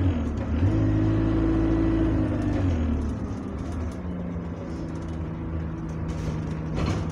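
Bus diesel engine heard from inside the saloon, pulling steadily for the first few seconds, then dropping in pitch about three seconds in as the power comes off and settling to a lower steady drone. A short clatter comes near the end.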